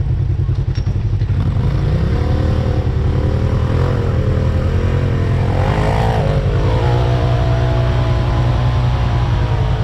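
Off-road vehicle engine running with a steady low rumble, its note wandering up and down as it is worked on the trail.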